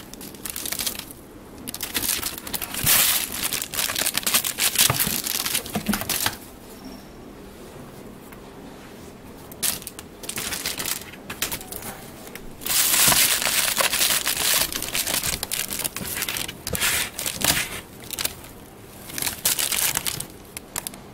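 Plastic cereal bag crinkling and rustling in irregular bursts as a Bengal kitten grabs and tugs it against a person's hand, with a quieter spell about seven seconds in.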